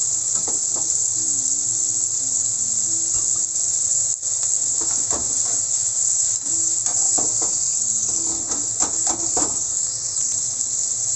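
Shrimp sizzling steadily in hot oil in a nonstick frying pan, with scattered clicks and knocks from a slotted spatula turning them and the pan being shaken.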